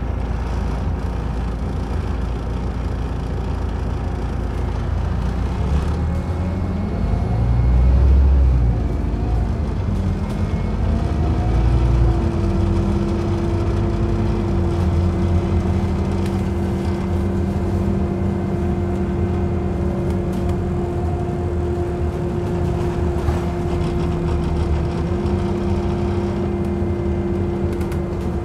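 Scania OmniCity bus heard from inside the saloon as it drives, with its engine pulling and rising in pitch as the bus picks up speed. About a third of the way in a steady whine sets in. The engine note steps twice, at the gear changes.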